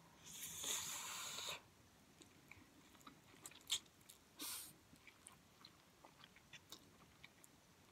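Ramen noodles, drained almost dry, slurped up from a fork: a long slurp of about a second near the start and a shorter one about halfway, with soft chewing clicks between and after.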